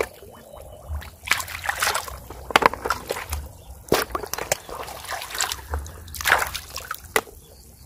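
Shallow water sloshing and splashing as a hand reaches into it to pick up clams from the muddy bottom: irregular splashes, with a few sharp knocks among them.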